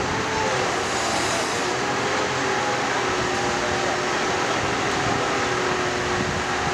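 Truck-mounted crane running steadily while lowering a heavy sculpture, its engine and hydraulic pump giving a continuous hum with a steady whine that shifts slightly in pitch about a second in.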